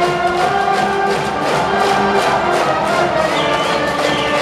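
A high-school brass band playing a baseball cheer song, horns holding sustained notes over a steady drum beat.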